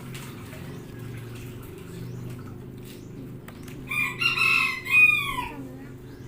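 A rooster crowing once, about four seconds in: one call of about a second and a half that falls in pitch at the end. A steady low hum runs underneath.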